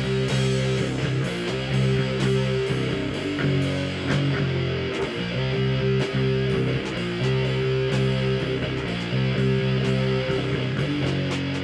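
Live instrumental rock band: electric bass and electric guitar playing held notes that change every second or two, over drums with regular cymbal and drum hits.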